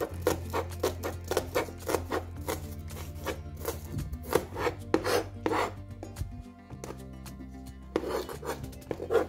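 A wide-bladed kitchen knife chopping spring onion whites on a cutting board, in quick sharp knocks of the blade against the board, about four a second. The chopping pauses about six seconds in and starts again near the end.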